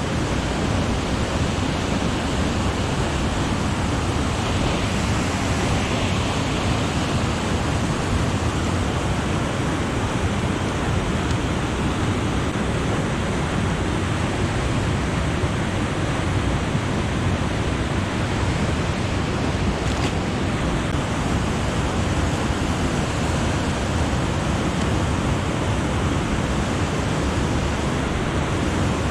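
A steady low rushing noise with no breaks, of the kind made by river water flowing or by wind on the microphone.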